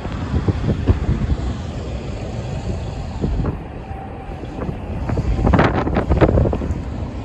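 Cars driving past close by, with wind buffeting the microphone. The noise swells for about a second some five and a half seconds in.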